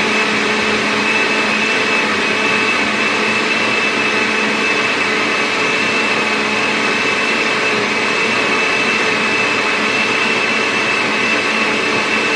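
Countertop blender running steadily at full speed with a high, even whine, churning torn paper scraps and water into papermaking pulp.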